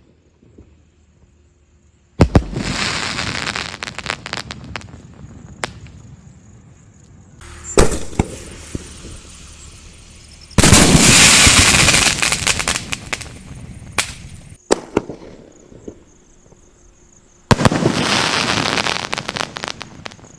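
An Annai Pyrotech 'Chori Chori' double-ball skyshot firing in a series of volleys. Each starts with a sharp bang and is followed by a few seconds of crackling and hissing as the shells burst. The loudest volley comes about halfway through, and there is a shorter single bang shortly after it.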